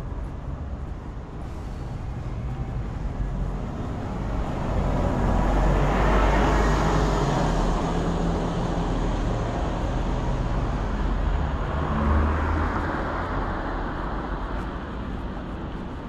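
Street traffic: vehicles driving past with a steady engine and tyre rumble, one passing close and loudest about six seconds in, another near twelve seconds in.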